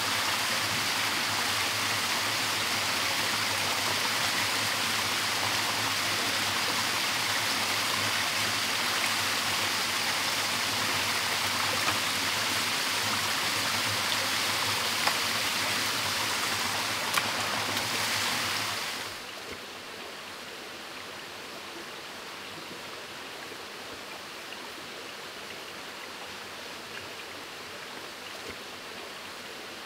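Steady rushing of a small waterfall and stream, with a few faint clicks in the middle. About two-thirds of the way through it drops suddenly to a quieter, duller hiss of more distant running water.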